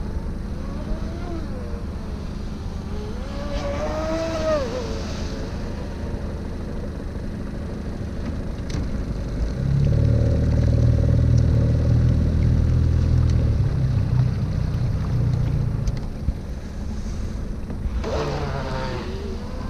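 A boat engine runs steadily throughout and gets louder for about six seconds in the middle. Gulls call overhead a few times, near the start and again near the end.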